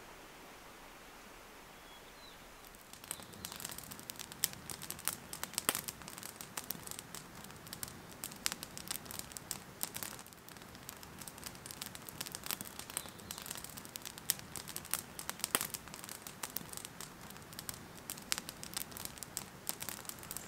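Wood campfire crackling, with irregular sharp pops beginning about three seconds in.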